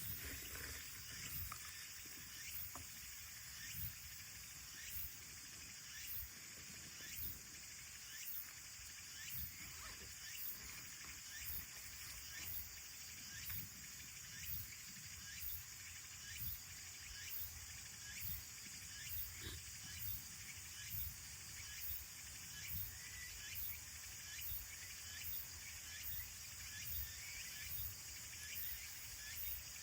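Faint outdoor ambience of an insect chirping in a steady, even rhythm, with light scattered crackles from the campfire.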